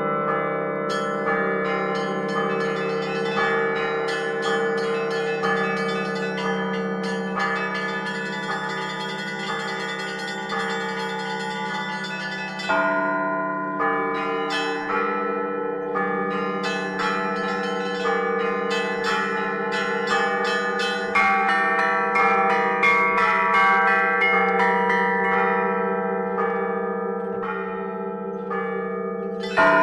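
Russian church bells played as a concert by a bell-ringer. Small high bells are struck in quick repeated patterns over the held hum of larger bells, with heavier strokes coming in about 13 seconds in and again about 21 seconds in.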